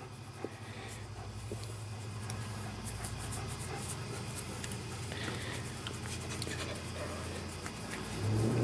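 A dog panting, over a steady low hum.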